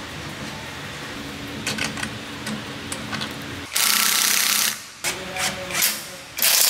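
Cordless impact driver running a bolt into the rear shock mount of a motorcycle frame: a loud burst of rapid hammering about a second long just under four seconds in, several short bursts after it, and another long burst near the end.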